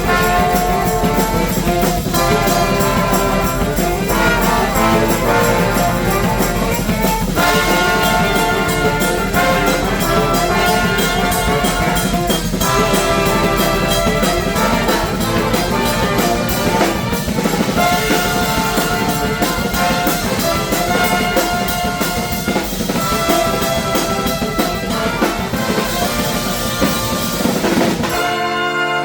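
Live brass band playing an upbeat tune, trumpets and trombones over drums. Near the end the low drums and bass drop out, leaving the horns.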